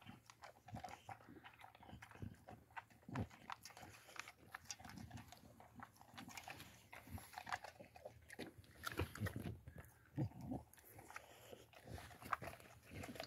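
Boxer dog eating from a steel bowl: irregular bites and chewing.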